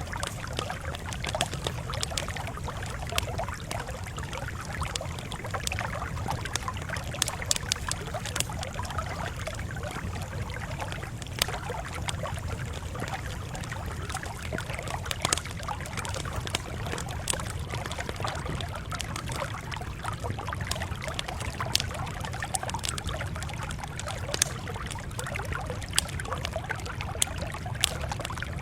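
Campfire crackling: scattered sharp pops over a steady hiss and a low rumble.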